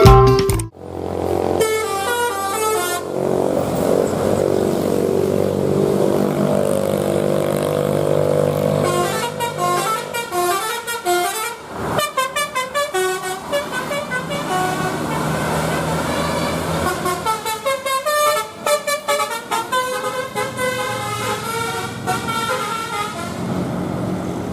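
Bus telolet horn of the basuri type playing quick multi-note tunes in three bursts: a short one near the start, then longer runs in the middle and near the end. A bus engine drones steadily underneath.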